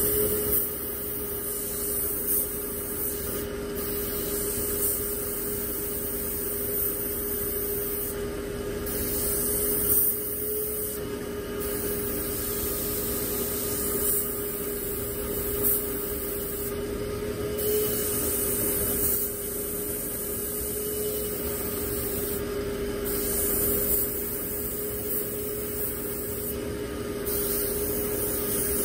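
Airbrush spraying paint, its air hiss coming and going in spurts over a steady hum from the air compressor.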